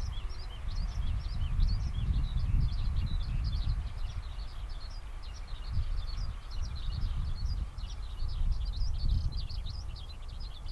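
Many small birds chirping continuously in dense, overlapping short calls, over a low, gusting rumble.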